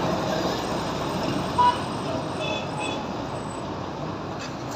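Busy street ambience: a steady wash of traffic and people. A short, loud tone cuts through about a second and a half in, followed by two brief higher beeps about a second later.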